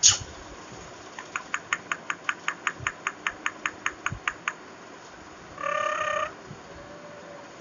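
Indian ringneck parrot calling: a rapid run of short, evenly repeated notes, about five a second for some three seconds, then one short pitched call. A sharp click comes right at the start and is the loudest sound.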